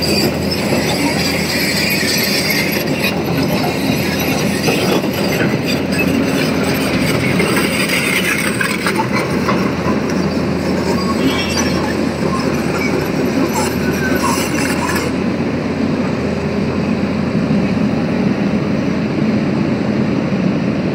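Hitachi Zaxis 220 crawler excavator travelling, its diesel engine running steadily under the rolling of its steel tracks.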